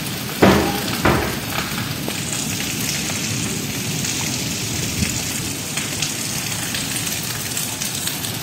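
Heavy rain pouring onto flooded ground and puddles: a steady hiss of drops splashing on water. Two brief loud bumps come about half a second and a second in.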